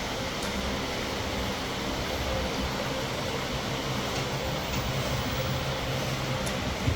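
Steady rushing, machine-like noise with a low hum underneath, and a brief knock near the end.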